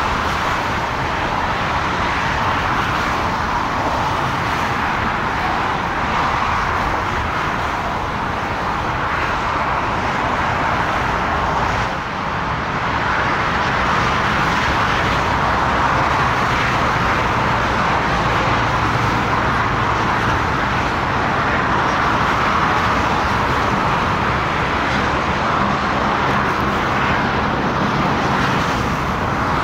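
Steady roar of airport and road traffic noise, a continuous even din with no distinct events.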